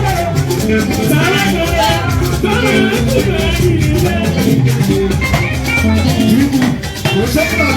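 Loud upbeat church music with shakers rattling rapidly, a steady bass, and voices singing.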